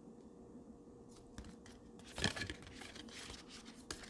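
Thick cardstock greeting cards being handled: quiet at first, then a short paper rustle about two seconds in, followed by a few lighter rustles and small taps.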